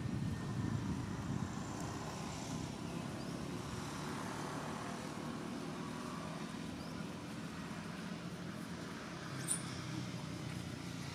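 Steady low outdoor background rumble, with a few faint short high chirps and one sharp click about nine and a half seconds in.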